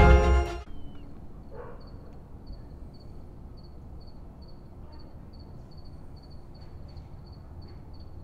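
Violin music cuts off just after the start, leaving a steady low hum of night ambience in which a cricket chirps at a high pitch about twice a second.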